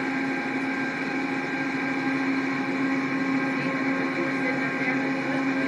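Steady mechanical hum of an Amtrak passenger train standing at the platform, heard close beside a coach. It is an even drone with one strong low tone and fainter fixed higher tones.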